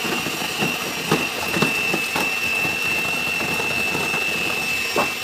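Electric stand mixer motor running steadily with a high whine, beating egg yolks into softened margarine. A few light knocks sound over it.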